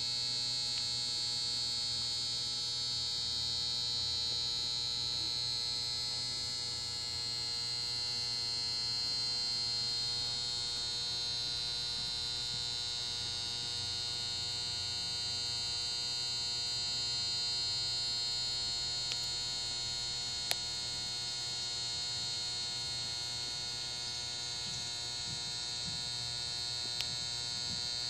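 A steady electrical hum with a high, hissing whine over it. A sharp click about twenty seconds in, and two fainter ones around it.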